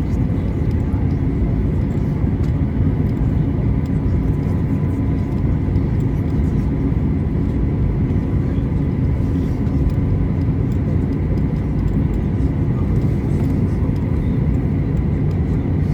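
Steady cabin noise of a Boeing 737-800 on the ground after landing: a low, even rumble from its CFM56-7B engines at idle and the airframe, with a faint steady high whine.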